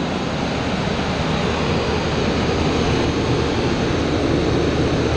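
2006 Range Rover L322's engine running steadily just after starting, now cranking and firing on a newly fitted starter motor that replaced one that only clicked.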